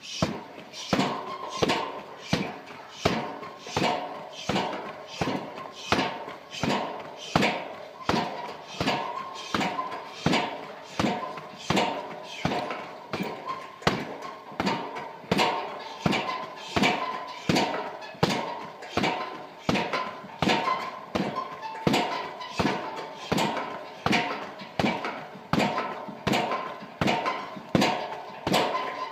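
Bare-legged Muay Thai round kicks striking a hanging leather heavy bag, one thud after another in a steady rhythm of about two a second.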